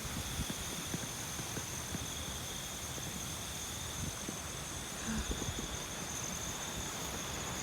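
Strong wind buffeting the microphone in irregular low rumbles over a steady rushing hiss, with night insects chirring in a steady high drone underneath.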